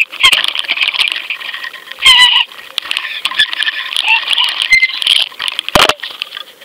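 Water churning and splashing against an underwater camera as it is hauled up through the surface, with many small clicks and crackles. A sharp knock near the end as the camera comes out of the water and hits the boat.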